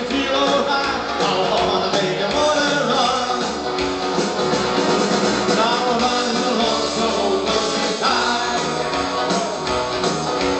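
Live amplified music: singing into microphones over a continuous instrumental backing.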